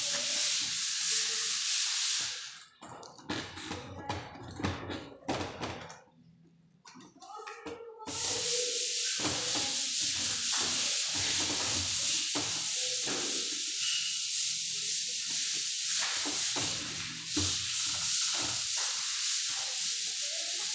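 A hand tool scraping across a plaster-of-Paris ceiling: a steady scraping hiss. About two and a half seconds in it breaks into short separate strokes, goes quiet briefly, and picks up steadily again about eight seconds in.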